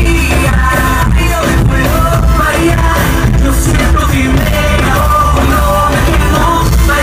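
Live band music, loud through the stage sound system, with strong bass under keyboards and electric guitar, and a male lead singer singing into a handheld microphone.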